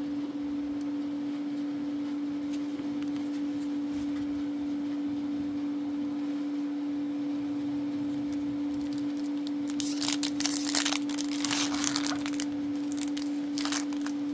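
Foil wrapper of a Magic: The Gathering booster pack crinkling and tearing as it is opened. The crinkling comes in a burst from about ten seconds in, with a little more near the end, over a steady low hum.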